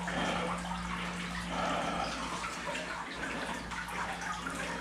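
Water splashing steadily from a stacked-stone water feature into a small pond, with a low steady hum underneath.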